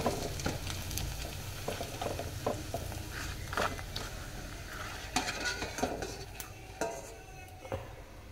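Papads sizzling as they fry in a little oil in an aluminium pan, with a slotted steel spoon scraping and clicking against the pan as they are turned and lifted. The sizzle fades gradually toward the end.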